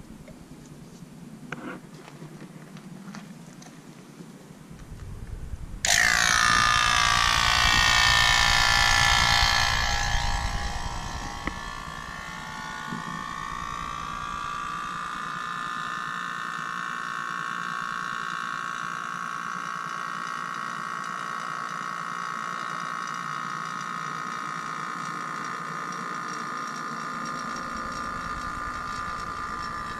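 A machine switches on about six seconds in with a loud whine that falls in pitch over several seconds. It then settles into a steady, somewhat quieter running tone.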